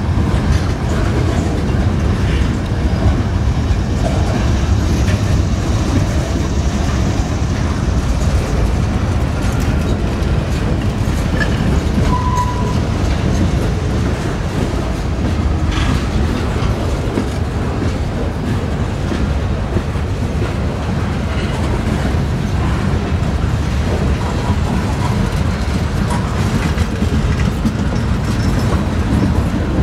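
Freight train cars rolling past close by: a steady rumble of steel wheels on rail with the clickety-clack of wheels over rail joints. A short high note sounds about twelve seconds in.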